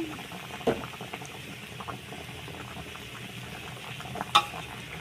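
Steady low sizzle of rice frying in an aluminium pot, stirred with a metal spatula that scrapes and ticks. It knocks sharply against the pot once about a second in and again near the end.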